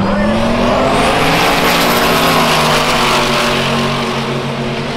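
Two single-turbo LS-powered drag cars accelerating hard side by side under full throttle, a high whine rising over the first second as the engine noise builds to a peak, then easing off as the cars run away down the strip.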